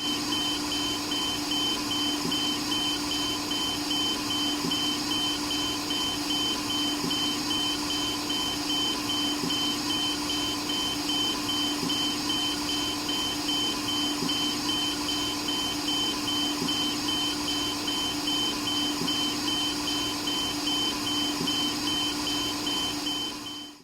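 ICU ventilator alarm beeping rapidly and evenly on one high pitch over the machine's steady hum and airflow hiss. A faint soft pulse comes about every two and a half seconds, and everything cuts off just before the end.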